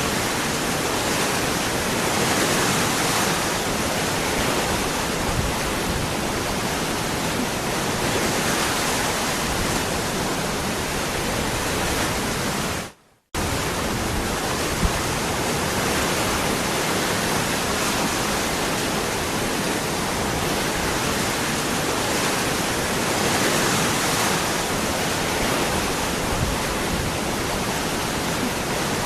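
Waterfall rushing in a steady, even roar of falling water. About halfway through the sound cuts out abruptly for a fraction of a second, then resumes unchanged.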